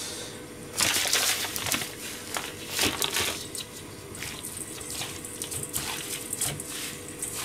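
Hands pressing and crushing panko breadcrumbs onto chicken breast cutlets in a stainless steel bowl: irregular gritty crunching and rustling, loudest about a second in and again around three seconds.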